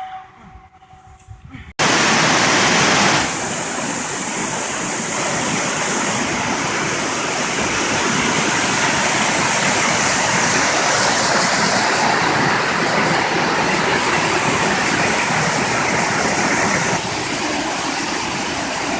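Waterfall: a loud, steady rush of falling water that begins abruptly about two seconds in.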